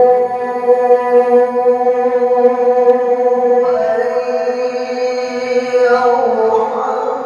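A male qari reciting the Quran in the drawn-out, melodic tilawah style into a microphone. He holds one long note for about three and a half seconds, then steps up in pitch and holds again, turning through a few notes near the end.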